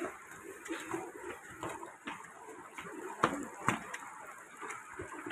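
Footsteps on stone stairs, irregular, with two sharper knocks a little over three seconds in, under faint indistinct voices.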